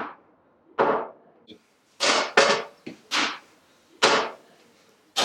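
A series of sharp knocks or bangs at irregular intervals, about eight in all, each ringing out briefly as in a small room.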